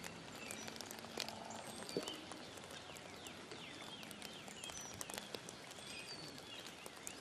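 Faint outdoor ambience of small birds chirping, several short high chirps a second, with scattered light ticks and a sharper tap about two seconds in.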